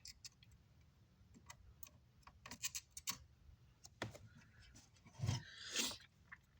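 Scattered light clicks and taps of small hand tools working on an amplifier's circuit board, with a louder knock and a brief scrape near the end.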